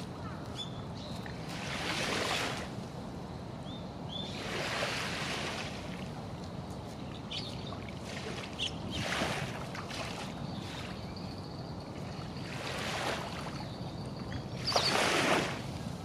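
Small waves lapping and splashing gently in a harbour inlet, a soft wash every few seconds, the biggest splash near the end.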